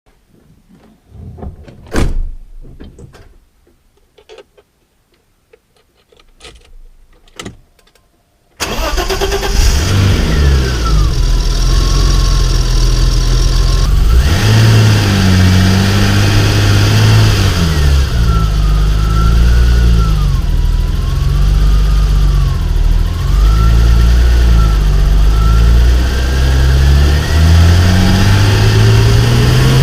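A few clicks and a sharp knock, then the 1988 BMW 325i E30's 2.5-litre straight-six starts suddenly, about a third of the way in, and runs with the revs rising and falling several times.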